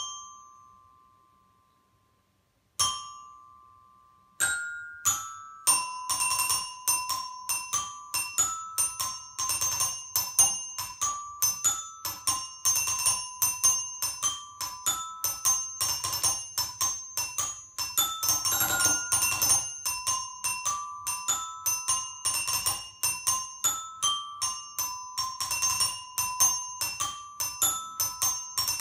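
Toy xylophone with coloured metal bars struck with two mallets: a few single ringing notes, then from about six seconds in a fast, steady run of strikes that mostly hammers one note, with brief jumps to a few higher ones.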